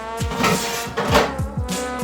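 Background music with a steady beat of deep bass-drum hits under held instrument tones.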